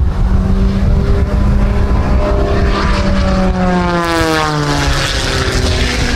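Aerobatic propeller airplane's engine droning as it flies by, its pitch falling from about three and a half seconds in as it passes. Wind rumbles on the microphone throughout.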